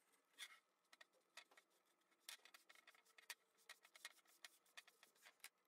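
Near silence, with faint scattered clicks and taps as a stain sponge and a wooden board are handled.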